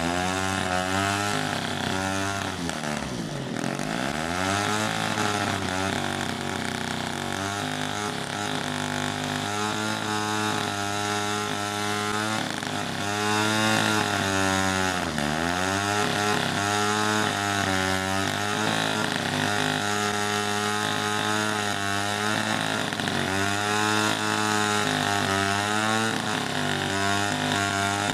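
Large two-stroke chainsaw cutting through a thick log, the engine running at high revs and its pitch dipping and recovering again and again as the chain loads up in the wood. The deepest dips come about three seconds in and again about halfway through.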